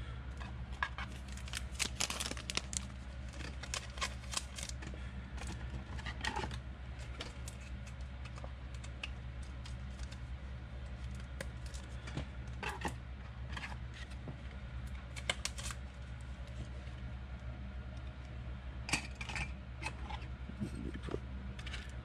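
Trading cards and a clear plastic card holder handled on a table: scattered light clicks and rustles over a steady low hum.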